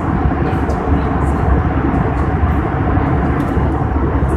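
Steady, loud cabin roar of an Airbus A319-111 in its climb after takeoff: the deep rumble of its CFM56-5B turbofan engines mixed with airflow noise, heard from inside the passenger cabin.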